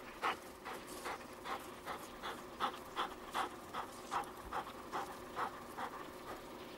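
Dog panting hard and rhythmically, about two and a half quick breaths a second, as an English setter runs.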